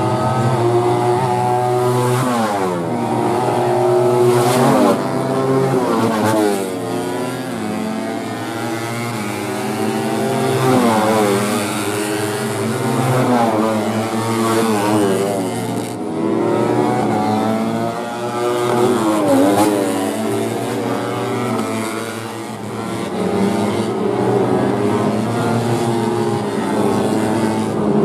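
Several four-stroke 150cc underbone racing motorcycles running hard around the track, their engine notes overlapping and falling and rising in pitch again and again as they brake, shift and accelerate past.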